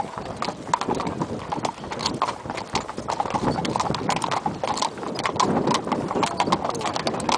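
Ridden horses' hooves clip-clopping on a tarmac lane, a quick, continuous run of sharp hoof strikes.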